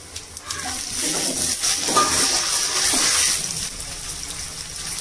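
Cut green chillies dropped into hot oil in a kadai, sizzling with scattered crackles. The sizzle swells about a second in and eases toward the end.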